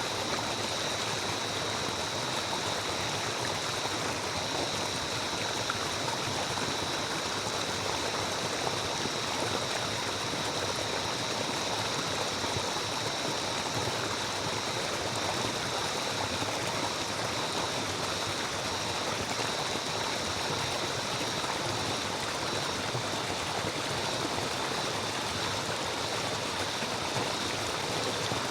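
A stream of water running steadily, with an even rushing and trickling that never lets up, and a faint steady high-pitched tone above it.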